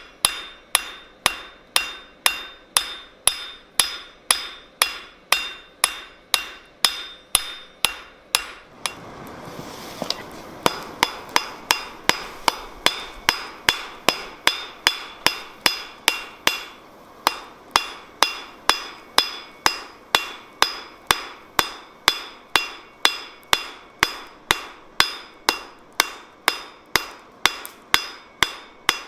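Hand hammer striking red-hot steel on an anvil in a steady rhythm of about two blows a second, each blow ringing. The blows pause for about two seconds a third of the way in, with a soft rushing noise, then resume a little faster.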